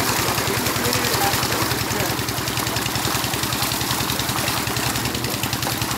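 An engine running steadily with a fast, even pulse, over the splashing of a crowd of catfish thrashing in shallow water.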